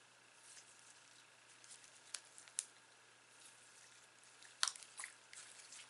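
Sticky slime being squished and stretched by hand: faint, scattered wet clicks and small pops, the loudest a little past halfway.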